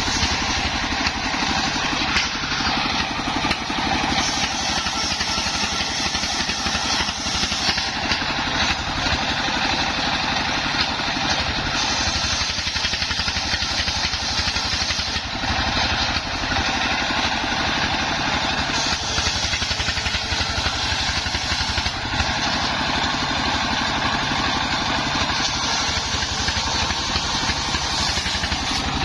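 Engine-driven homemade circular sawmill running steadily while ripping timber into battens. The engine's beat runs underneath, and the cutting noise swells and eases several times.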